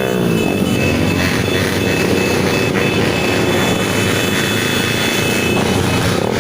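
Engines of many motorcycles running together in a steady drone, with a rising and falling rev that fades out about half a second in.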